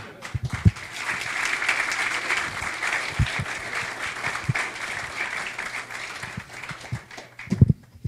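Audience applauding. The applause builds up within the first second and dies away near the end.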